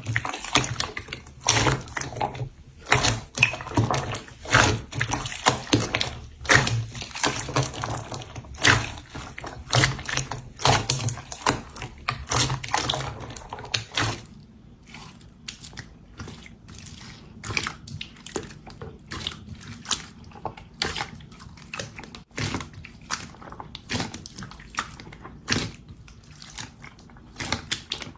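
Slime being squeezed and poked by hand, making irregular sticky pops and crackles. About halfway through it changes to sparser, sharper clicks from another batch of slime.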